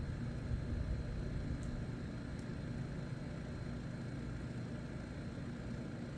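Steady low machine hum with several fixed pitches, with a few faint light clicks in the first couple of seconds.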